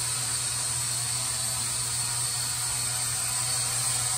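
Small toy quadcopter drone hovering, its four propellers and motors giving a steady, even buzz.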